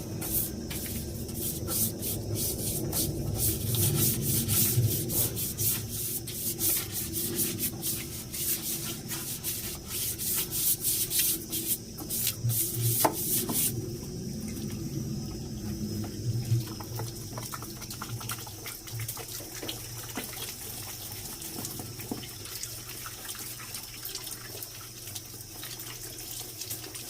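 Running water splashing, with a dense crackle of small clicks and scrapes through about the first half that then gives way to a steadier, quieter wash of water.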